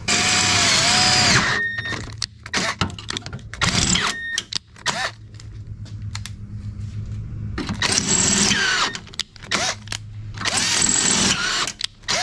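Drill boring out a broken, rusted bolt in a car's steel radiator support, running in short bursts with its motor whine bending up and down as the bit bites, and clicks and knocks of handling between bursts.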